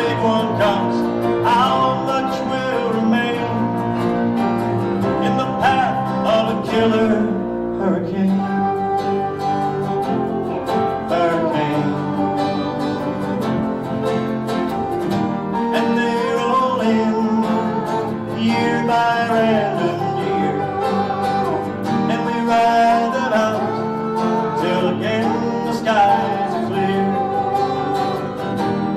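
Instrumental break in an acoustic folk song: acoustic guitar playing steadily beneath a wavering melodic lead line.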